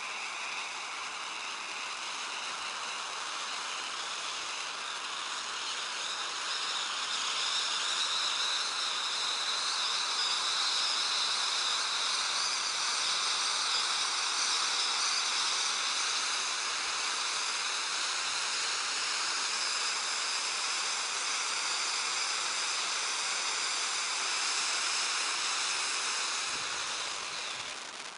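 Titanium Volcano cone fountain (SkyLine SL08) spraying titanium sparks with a steady hiss. It grows a little louder after several seconds and dies away near the end as the fountain burns out.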